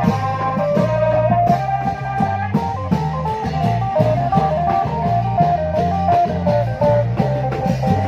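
Lively Thai klong yao procession music: a stepping lead melody over a steady drum beat and bass.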